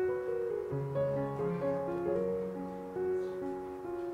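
Background instrumental music, a gentle melody of separate notes, piano-like.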